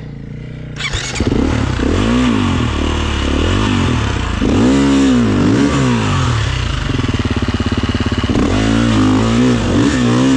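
Husqvarna FE 350's single-cylinder four-stroke engine given repeated short bursts of throttle, its pitch rising and falling several times, as the dirt bike is worked through a deep rut. It jumps louder about a second in and runs steadier near the end.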